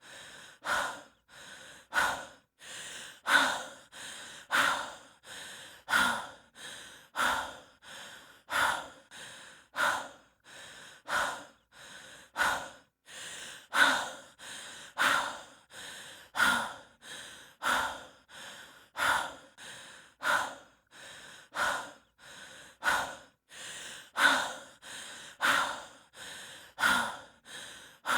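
A person breathing heavily and fast, as from the exertion of hiking, in a steady rhythm of about one breath every 1.3 seconds, each with a softer half and a louder half.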